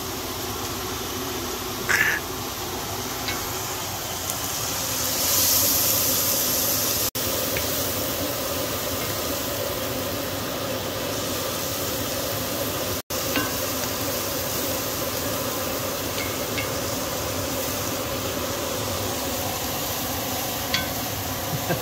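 Diced onions, celery and garlic sizzling in butter and pan drippings in a cast-iron skillet: a steady frying hiss that swells louder for a couple of seconds about five seconds in. It cuts out sharply twice for an instant.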